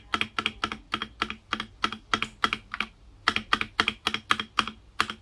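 A long stabilized key on an FL-Esports FL680 mechanical keyboard with PBT keycaps pressed over and over, about four strokes a second with a short pause near the middle. The stock, untreated stabilizer gives a slight rattle.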